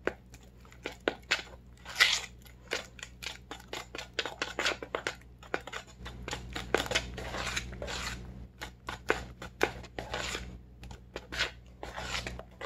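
Metal fork beating thick egg batter in a plastic mixing bowl: an irregular run of quick scrapes and clicks as the fork hits and drags along the bowl, several a second, the loudest about two seconds in.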